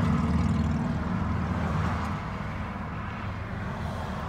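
A truck's engine and road noise heard from inside the cab while driving. The engine note is loud at first and eases off after about two seconds.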